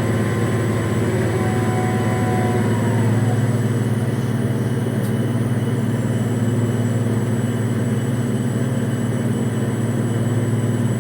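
Steady low drone of the offshore crane's running engine and machinery, unchanging throughout. A faint high tone fades out in the first few seconds.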